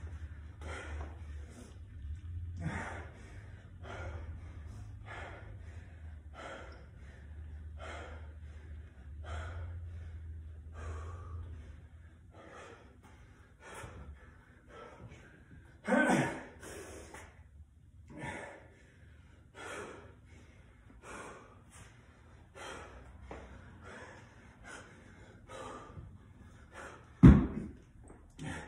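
A man breathing hard and loud after intense exercise, panting about once a second with a louder gasp partway through. A loud thump comes near the end as he starts lifting the dumbbell again.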